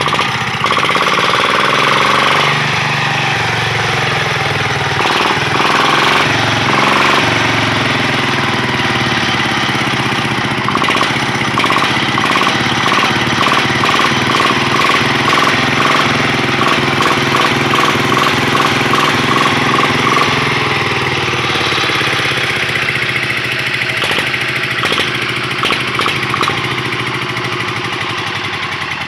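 Single-cylinder diesel engine of a Quick hand tractor running through a motorcycle muffler, a loud, rapid, even firing beat. Its speed drops and picks up again a couple of times, and it eases down near the end.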